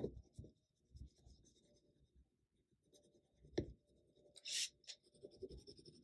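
Wax crayon being rubbed over paper while coloring in, a series of faint scratchy strokes with a short sharp click about three and a half seconds in.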